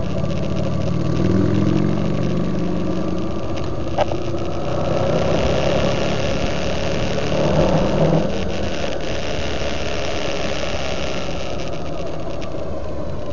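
Motorcycle engine running as the bike rolls along, over steady road and wind noise, its note swelling briefly about a second in and again near eight seconds. A single sharp click about four seconds in.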